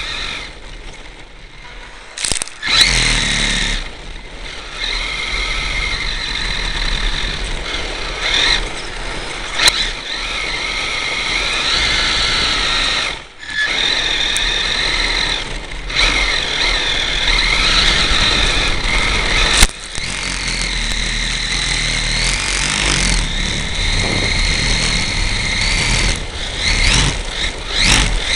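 HPI E-Firestorm Flux RC stadium truck's brushless electric motor and gear drive whining, the pitch rising and falling with the throttle, over the rumble of the tyres on the ground. The sound drops out briefly a few times, near 2, 13, 16 and 20 seconds in.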